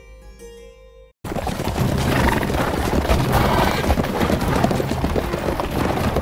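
A short tune's last notes fade and cut off about a second in. Then many horses' hooves beat on the ground as a mounted column rides in, under music.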